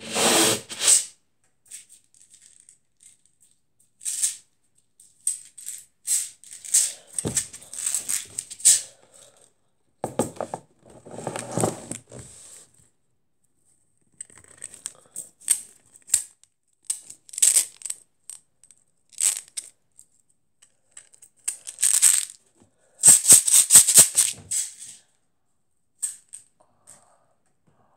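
Pin art toy with plastic pins rattling and clicking in irregular bursts as it is handled, with a fast run of clicks near the end.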